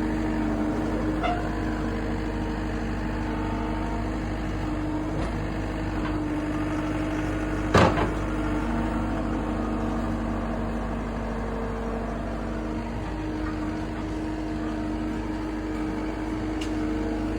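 Vehicle engine running steadily, a constant hum, with one sharp knock about eight seconds in.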